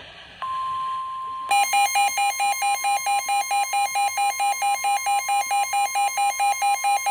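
NOAA Weather Radio warning alarm: the steady 1050 Hz broadcast alert tone comes on about half a second in, marking a new warning, and about a second later a weather radio's own alarm joins it with loud rapid beeping, about four beeps a second.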